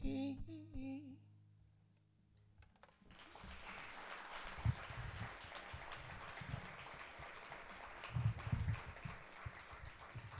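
An acoustic guitar's last chord rings out and fades under a final sung note; about three seconds in, an audience breaks into applause that carries on steadily.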